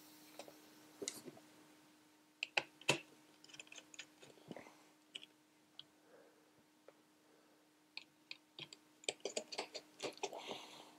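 Faint, scattered clicks and taps of a screwdriver and tiny screws against a clamp meter's plastic case and circuit board as the board's screws are taken out, with a run of quicker clicks near the end.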